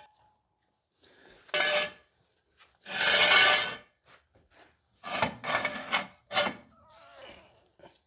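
Steel jack stands being dragged and set in place under a car: metal scraping and clanking in several separate bursts, the longest a rasping scrape about three seconds in, with a fainter scrape near the end.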